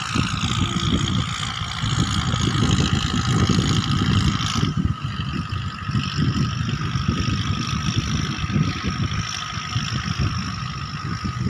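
Wind buffeting a phone microphone on an open beach: a rough, irregular low rumble with a faint steady whine above it.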